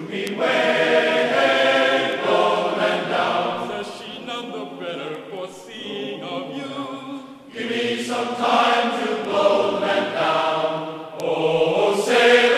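Music of choir-like singing voices holding long chant-like notes, softer for a few seconds in the middle.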